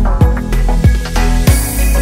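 Background music with a steady beat: deep kick drums about every two-thirds of a second over a sustained bass line, with a hissing swell near the end.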